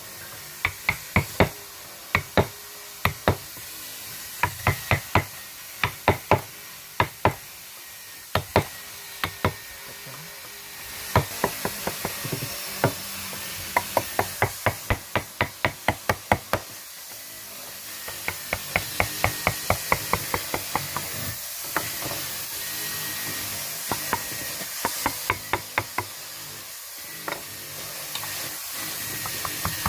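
Mallet tapping a carving chisel into wood: quick runs of sharp knocks, several a second, with short pauses between runs.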